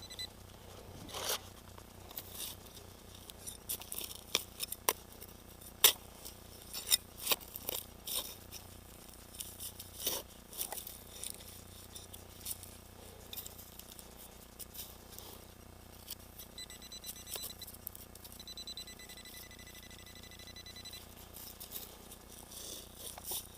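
Metal detector's electronic tone, a steady high beep that sounds briefly at the start and again for several seconds near the end, between sharp clicks and scrapes of digging and handling soil to recover a shallow target.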